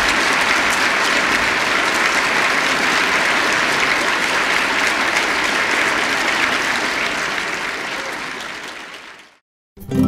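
Conference audience applauding steadily, the clapping fading out near the end; a plucked guitar begins just as it stops.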